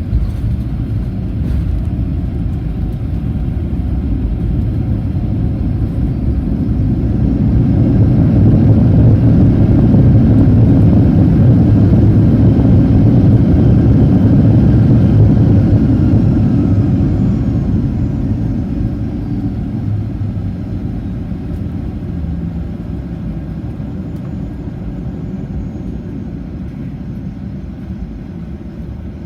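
Boeing 737-800 cabin rumble while taxiing: the CFM56 jet engines' low roar swells to a peak about eight seconds in, holds, then winds back down with a faint falling whine.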